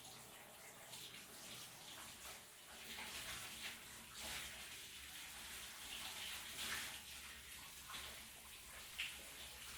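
Shower running, its water spraying and splashing unevenly, with a sharper splash about nine seconds in.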